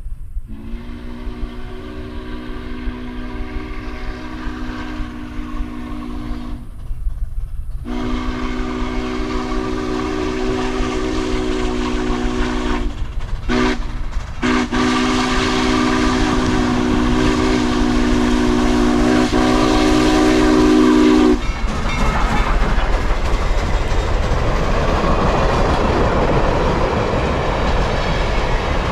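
Steam locomotive 462's whistle sounds a chord of several tones in two long blasts, a short one and a final long one. That is the standard grade-crossing signal. Then the train passes close by, with steady rolling noise and clickety-clack from the cars' wheels.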